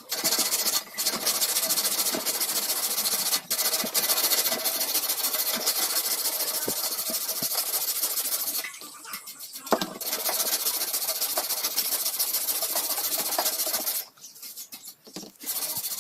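Loud, steady hiss in long spells, breaking off twice for about a second.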